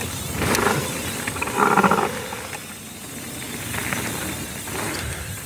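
Mountain bike riding down a trail: tyres rolling and wind rushing over the rider's camera microphone, rising and falling, with a brief buzz about a second and a half in.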